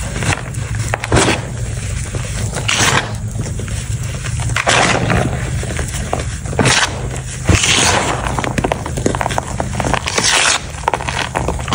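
Hands squeezing and crumbling soft, powdery reformed gym chalk, with irregular crunches as the lumps break apart in the fingers.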